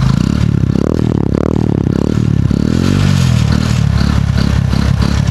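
Hero Passion Plus motorcycle's single-cylinder four-stroke engine heard close at the silencer, revved in a few quick blips with the pitch rising and falling, then settling back to a steadier fast idle in the second half.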